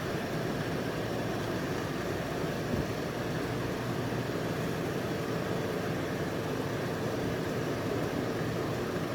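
Steady low mechanical drone with a faint constant hum, unchanging throughout.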